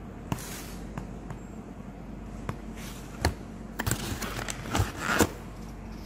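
Cardboard capsule box and paper leaflet being handled: scattered clicks and short rustles, busiest about four to five seconds in, with the loudest knock near the end.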